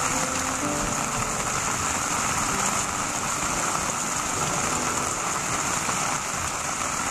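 Steady rain falling on a flowing water channel and the paving and plants around it: an even hiss with no pauses.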